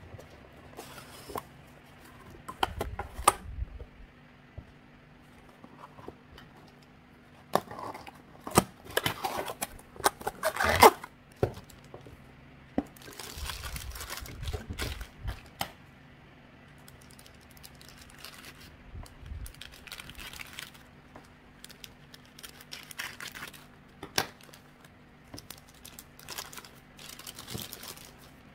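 Clear plastic packaging being crinkled and torn open by hand, in irregular bursts with scattered sharp clicks, the loudest tearing about ten seconds in.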